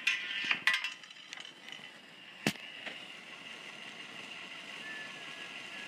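Clicks and rattles of small plastic K'Nex parts as a Rube Goldberg machine is set going, with one sharp knock about two and a half seconds in, over a steady hiss.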